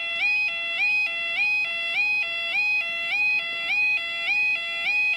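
Level crossing warning alarm sounding: a steady electronic two-tone warble of alternating low and high notes, each note sliding up briefly at its start, repeating in a regular cycle.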